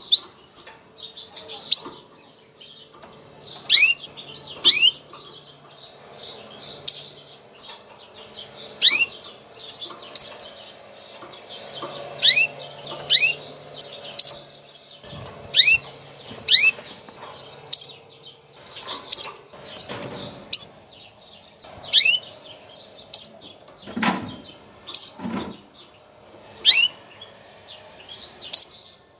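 Female canary calling: sharp, high chirps that sweep downward in pitch, repeated about once a second. It is the hen's mating call, used to bring male canaries into breeding condition. Two dull knocks come about three-quarters of the way through.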